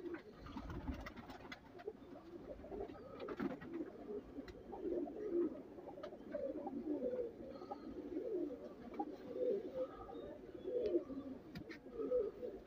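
Several domestic fancy pigeons cooing, low overlapping coos throughout, with a few light clicks.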